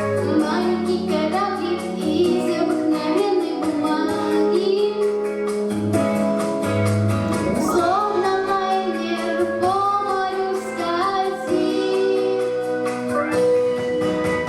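A ten-year-old girl singing a song over instrumental accompaniment.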